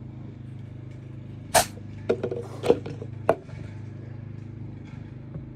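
A handful of sharp metallic clicks and knocks from hand tools working the top cover plate of a new Denso AC compressor, over a steady low hum.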